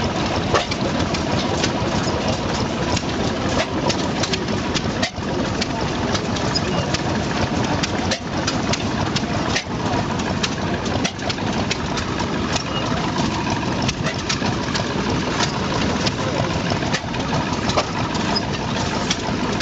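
Deutz E3 horizontal stationary gas engine running steadily, its flywheels turning, with many sharp mechanical clicks over a continuous engine sound.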